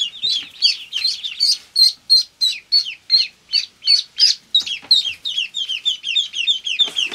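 Blue Swedish ducklings peeping: a continuous string of short, high peeps, about three to four a second, many of them falling in pitch.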